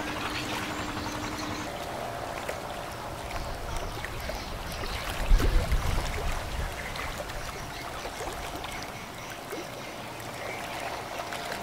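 Water rushing and splashing in the bow wave of a passing container ship, under a faint steady hum of the ship's machinery. A brief low rumble comes about five seconds in.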